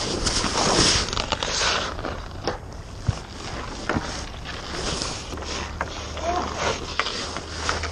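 Ice skate blades scraping and carving on outdoor rink ice as a hockey goalie shuffles and drops in the crease. The scraping comes in hissing sweeps, heaviest in the first two seconds, with a few sharp knocks scattered through it.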